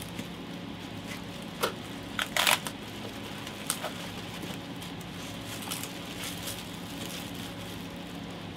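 Plastic bag and inflated air-cushion packing crinkling and rustling as it is pulled off a machine, with a few short, sharper crackles, the loudest about two and a half seconds in. A steady low hum runs underneath.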